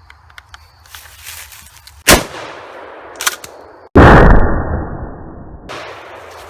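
Kel-Tec KSG 12-gauge pump shotgun firing a homemade crayon-loaded shell: a sharp blast about two seconds in, a short click, then a second, longer blast about four seconds in that dies away slowly.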